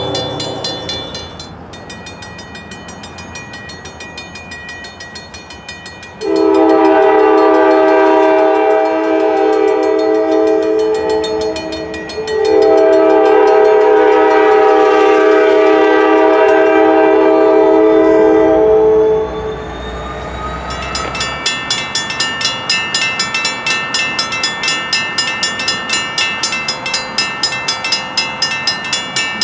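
Safetran mechanical railroad crossing bell ringing with rapid, even strokes, drowned out in the middle by a train horn sounding two long blasts with a short gap between them. After the horn stops, the bell strokes come through clearly again, about two a second.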